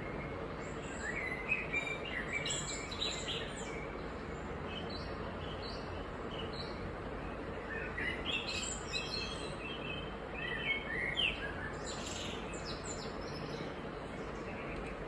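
Small birds chirping in short bursts, a cluster of calls about a second in and a longer run from about eight to thirteen seconds in, over a steady background hiss.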